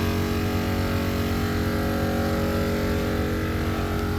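Morrflate 10.6 Pro air compressor running steadily with an even, pitched hum over a fast low throb, under load inflating four tires at once.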